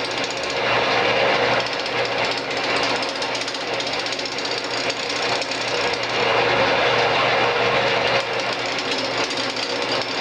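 Bowl gouge cutting an out-of-round glued-up cherry blank spinning on a wood lathe: a rapid, continuous chattering knock as the corners strike the tool in an interrupted cut, over a steady hum.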